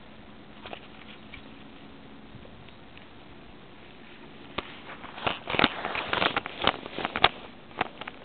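Willow twigs, leaves and bark crackling and scraping against the camera during climbing in the tree: faint, scattered ticks at first, then a dense run of irregular crackles starting about four and a half seconds in, thinning to a few clicks near the end.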